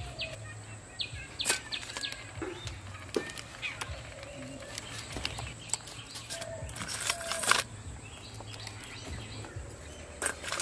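Small river crabs being cleaned by hand: scattered cracks and clicks as the shells are pulled apart, with a crab set into a steel bowl near the end. Birds chirp in the background.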